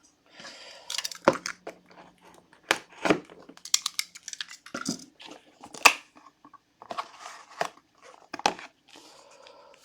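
Trading card box packaging being handled: plastic wrap crinkling and cardboard crackling, with irregular sharp clicks and taps.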